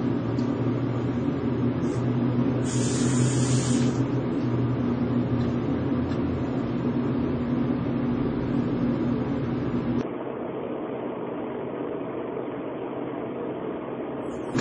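Hand-held hair dryer running with a steady blowing whir over a low electric hum. About ten seconds in it becomes quieter and duller, and a brief high hiss sits over it about three seconds in.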